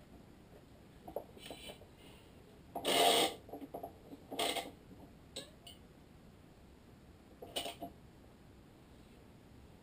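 Hand-stringing a badminton racket on a stringing machine. A synthetic string is pulled through the frame and across the string bed in two quick, loud rushing pulls, about three and four and a half seconds in. Scattered light clicks and rattles come from handling the string and the machine.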